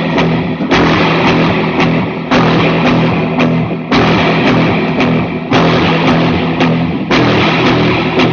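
Heavy rock music: distorted electric guitar and drums, with a loud chord struck about every second and a half.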